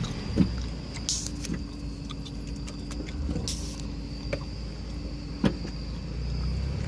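Mazda Miata NA's four-cylinder engine running at low speed, with a steady squeal from the clutch lasting several seconds as the clutch is released. A few light clicks and two brief hissing bursts are also heard.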